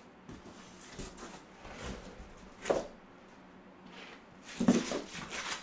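Styrofoam packaging inserts being handled and pulled out of a cardboard box: a series of short rubbing and scraping noises, loudest about two and a half seconds in and again in a cluster near the end.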